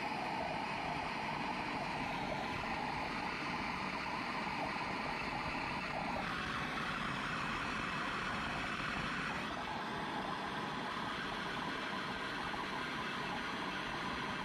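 Handheld gas torch burning with a steady hiss while heating a cable lug for soldering; the tone shifts slightly about six seconds in and again around nine and a half seconds in.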